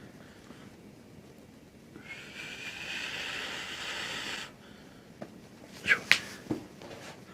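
A long, breathy exhale lasting a couple of seconds, then two or three sharp cracks close together from the spinal adjustment, the loudest sounds here.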